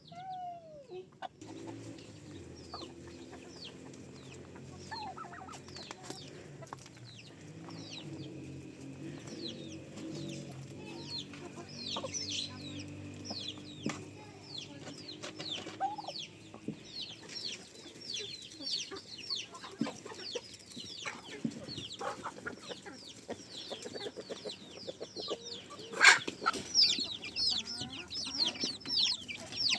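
Chickens clucking, with a dense stream of short, high, falling cheeps throughout and a low drone in the first half. A single sharp click, the loudest sound, comes near the end.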